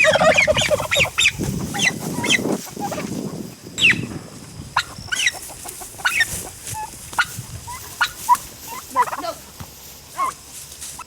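Turkeys calling: a loud, dense rattling call like a gobble in the first second, then many short, high chirps and yelps scattered through the rest.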